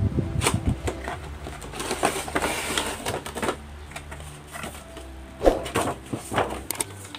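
Cardboard box and plastic blister packaging being handled and opened: irregular rustles, scrapes and clicks as the tray is slid out of the box, with a few sharper clicks late on.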